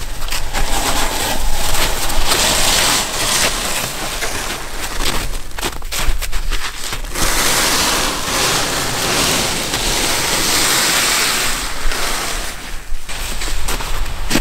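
Snow crunching underfoot and the runners of a wooden transport sled scraping over snow as the sled is dragged by hand, in long noisy swells with two short lulls.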